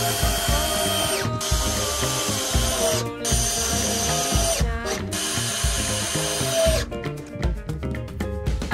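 Cordless drill boring into a wooden beam, running in several bursts with short stops between them, its motor whine dipping in pitch as it bites. It stops about seven seconds in. Background music with a steady beat plays underneath.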